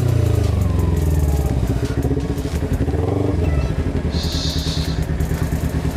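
Kawasaki Ninja 250R's parallel-twin engine dropping in revs as the bike slows, then running unevenly at low revs while it rolls in at walking pace. A brief hiss sounds about four seconds in.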